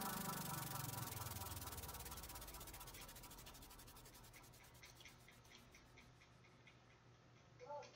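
Electronic background music fading out, with a falling pitch sweep over the first couple of seconds, then near silence.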